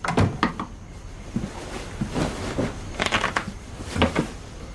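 Playing cards being shuffled and handled on a table in several short bursts, with a couple of soft knocks.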